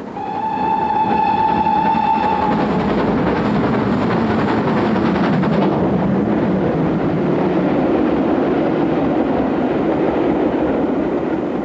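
A GWR Castle-class 4-6-0 steam locomotive sounds one steady whistle note for about two and a half seconds, then runs past at speed. The noise of the engine passing gives way to the coaches clattering over the track.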